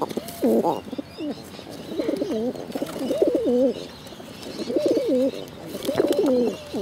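Pigeons cooing close up, a run of wavering, low calls that come in bouts with short pauses between them.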